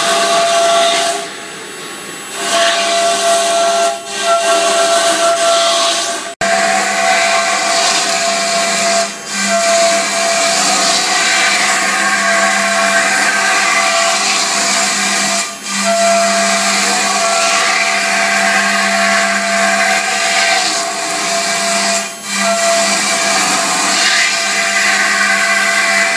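A 13.5 kW air-cooled CNC router spindle whines steadily as its bit carves polystyrene foam turning on a rotary axis, with a loud hiss of cutting. The sound dips briefly every few seconds.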